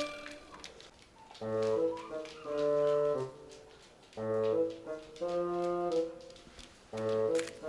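Background music: a horn-like melody played in short phrases, the first starting about a second and a half in.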